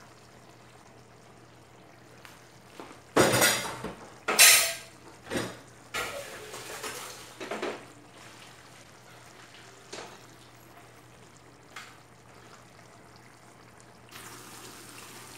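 Cooking pot of boiled rice being taken off a gas stove and handled for draining: two loud bursts of clattering noise about three and four and a half seconds in, then a few lighter knocks. Near the end a low, steady sizzle from the pan of chicken curry cooking on the stove.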